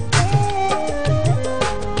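Instrumental break in a Punjabi folk-style song: a held melody line over a steady drum beat, with no singing.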